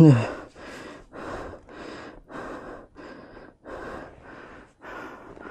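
Heavy, rapid breathing of a hiker out of breath from climbing uphill, about two breaths a second. It opens with a voiced sigh that falls in pitch.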